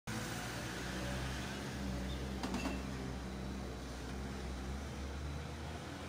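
Steady low mechanical hum, with a single light knock about two and a half seconds in.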